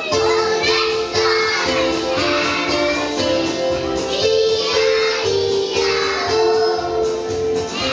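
Children singing with musical accompaniment: a simple melody of long held notes, one after another.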